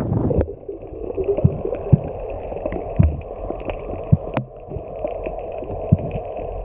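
Muffled underwater sound as picked up by a camera in its housing: a dull steady water hum with scattered sharp clicks and knocks. It begins about half a second in, where wind noise cuts off.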